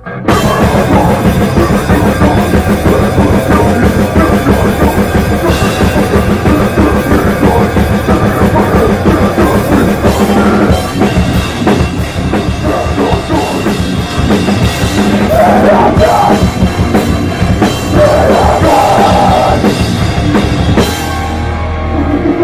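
Hardcore punk band playing live and loud, drum kit and cymbals to the fore, the whole band coming in at once at the start. The playing drops back about a second before the end.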